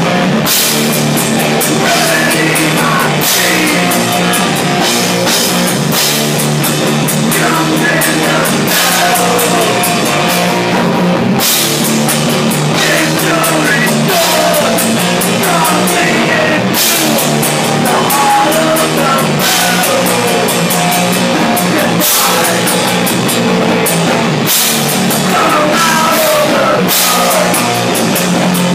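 A three-piece rock band of electric guitar, bass and drum kit playing a song loudly, with frequent cymbal crashes.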